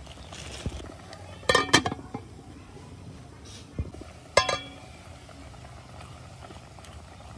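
A metal cooking pot clanking and ringing as it is knocked by a utensil: a quick cluster of knocks about a second and a half in, and another sharp knock a little past the middle. Beneath them is the low, steady sound of the pot simmering on the burner.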